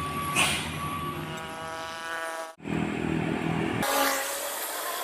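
Vehicle engines and traffic on a steep road. A pitched tone holds for about a second before the middle, and the sound is broken by two abrupt cuts between clips.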